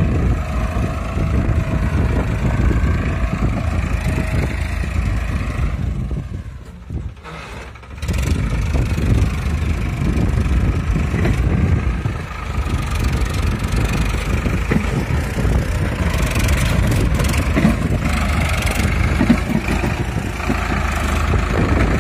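Farmtrac 60 EPi PowerMaxx tractor's three-cylinder diesel engine running under load while pulling a heavily loaded trolley through loose sand. The sound drops briefly about six to eight seconds in, then carries on as before.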